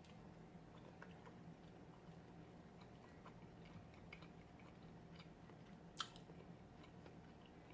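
Faint chewing of battered fried seafood close to the microphone, with small scattered clicks and one sharper click about six seconds in.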